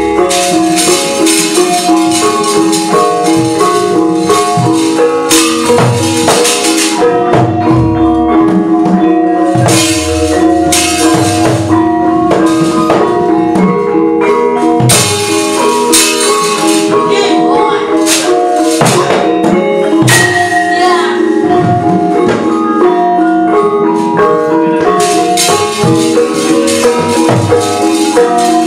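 Javanese gamelan accompaniment: metallophones play interlocking, repeating notes over kendang drum strokes. The dalang's kecrek metal plates clatter again and again, marking the puppet movements.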